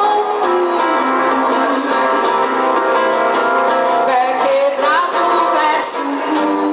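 Acoustic guitar strummed, with a singing voice carrying a melody over it.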